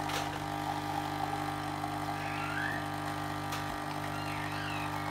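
Krups Dolce Gusto capsule coffee machine's pump humming steadily as it dispenses coffee into a glass.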